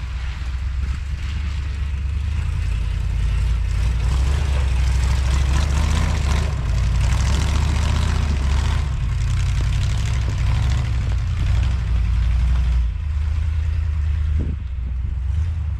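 1979 Ford F250 pickup's engine running hard under load as the truck drives through snow, with a steady rushing noise over the low engine drone. It eases off about a second before the end.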